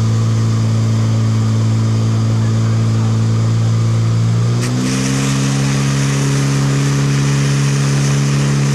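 Portable fire pump's petrol engine running hard at high revs, feeding the attack hoses. About four and a half seconds in its pitch steps up and stays higher, and a steady hiss, typical of water jets from open nozzles, grows louder.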